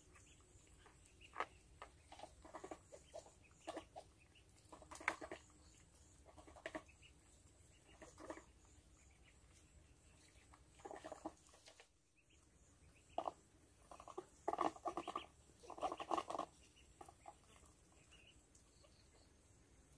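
Small scattered clicks from a baby monkey eating food out of a hand. Then, a little past halfway, a duck calls in a cluster of short quacks.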